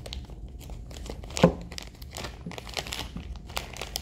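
Thin plastic bag crinkling and rustling as it is unwrapped by hand, with one sharp click about a second and a half in.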